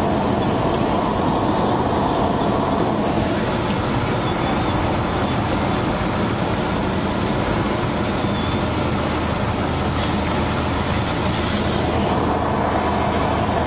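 Cabin noise inside a single-engine high-wing light aircraft landing: the engine and propeller drone steadily under a constant rush of air through the flare and rollout.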